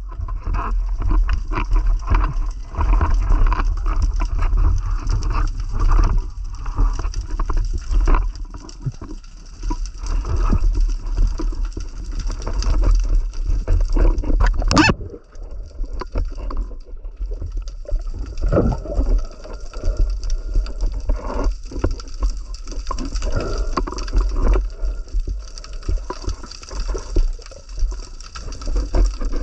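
Underwater sound through a camera housing on a speargun: a muffled water wash with a heavy low rumble and irregular small knocks, and one sharp click about halfway through.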